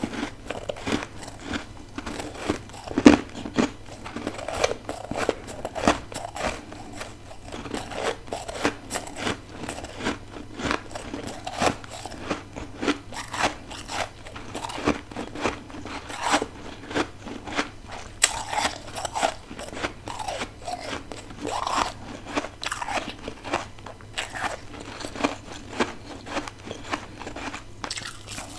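A person biting and chewing frozen freezer frost or ice: a fast, irregular run of crisp crunches and crackles.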